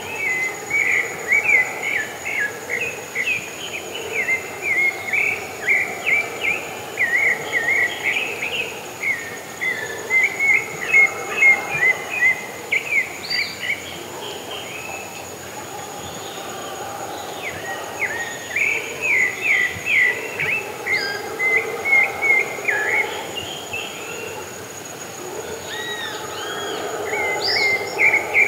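Pale-breasted thrush singing long runs of quick, varied whistled notes, broken by a couple of short pauses, over a steady high insect drone.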